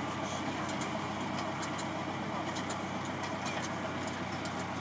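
Tractor engine running steadily as it pulls a Ferrari Multipla transplanter planting celery, with scattered light clicks from the moving machine.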